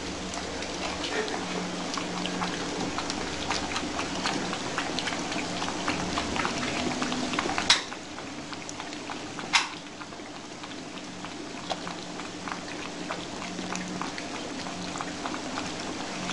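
Kittens eating together from one bowl: a dense, steady patter of small wet chewing and lapping clicks, with two sharper clicks a little over halfway through.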